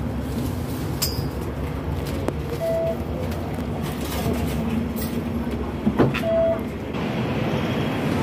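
Inside a Hong Kong double-decker tram while it runs: a steady low rumble with scattered clicks and knocks from the car. Two short beeps sound about four seconds apart.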